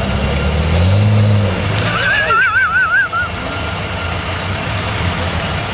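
Mitsubishi Pajero off-roader's engine revving up and down as it crawls through a muddy rut, then running more steadily. About two seconds in, a high warbling whistle-like tone wavers for about a second.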